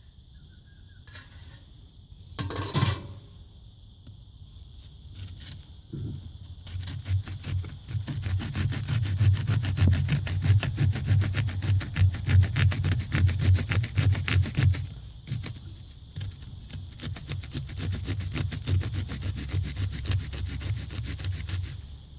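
Rapid, continuous scraping strokes of a tool working wet high-temperature cement mix. The strokes start about six seconds in and are loudest for the next eight seconds before easing off. There is one short, loud scrape about three seconds in.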